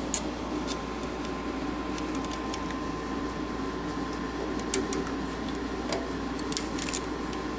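Scattered light metallic clicks from a valve spring tool and valve parts being handled on a flathead Ford V8's valve springs, over a steady room hum.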